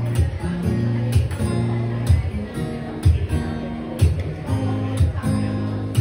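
Steel-string acoustic guitar strummed in a steady rhythm, its chords ringing on, with a sharper accented strum about once a second.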